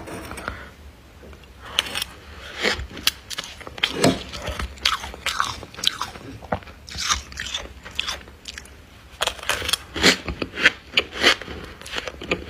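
Freezer frost being bitten and chewed: an irregular run of crisp crunches, several a second, growing denser near the end.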